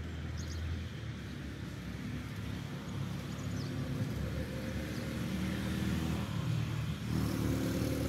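A passing motor vehicle's engine running, growing gradually louder as it approaches.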